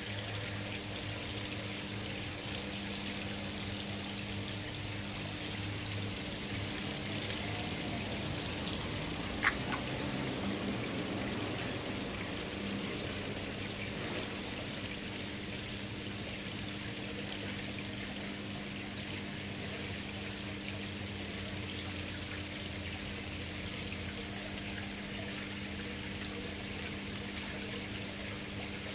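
Water trickling and splashing steadily into a koi pond, with a low steady hum underneath. A single sharp click about nine seconds in.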